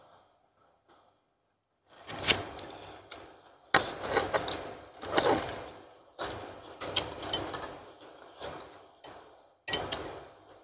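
Close-up eating sounds of a bowl of spicy instant noodles with meatballs. The bursts are slurping and chewing, irregular and noisy, beginning about two seconds in after a quiet start.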